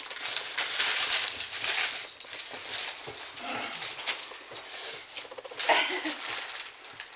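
Christmas wrapping paper being torn and crinkled off a large gift box, in quick ripping strokes with pauses, plus a couple of short pitched sounds near the middle and toward the end.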